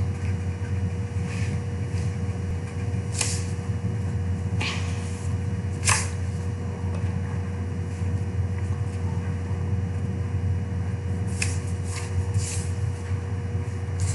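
Pencil scratching on paper in a few short, separate strokes, over a steady low hum.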